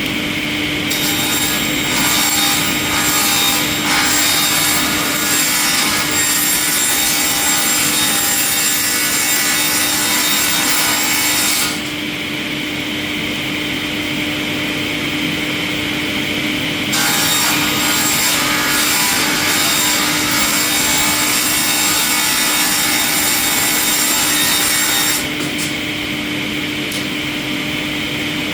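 Industrial wood-processing machine running with a steady hum, cutting through wood in two long stretches of about ten and eight seconds, with the machine running without load in between.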